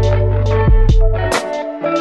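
Background music: a guitar-led track with drums and bass, the bass dropping out briefly near the end.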